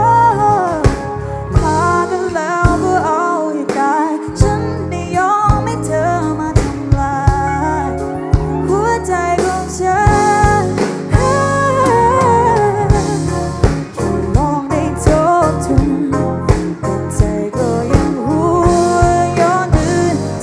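Music: a song with a singing voice over a bass line and percussion.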